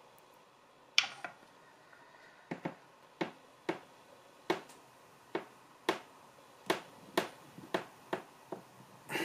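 A string of sharp metallic clicks, about two a second, starting about a second in, as a flat steel pry bar is worked into the seam between the aluminium case halves of a Honda K20Z1 transmission. The halves are held by old Honda Bond sealant.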